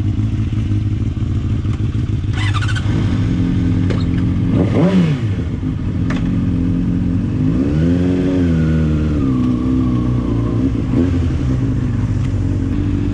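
Honda CBR600RR sportbike's inline-four engine idling, blipped once about five seconds in, then pulling away at low speed, the engine pitch rising and falling around eight seconds in.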